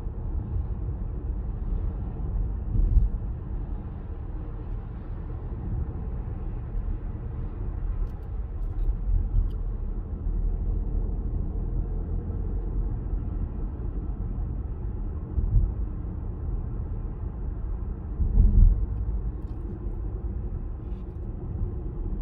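Cabin noise in a Peugeot 408 1.2 PureTech 130 while driving: a steady low rumble of road and engine noise, with a few brief louder bumps.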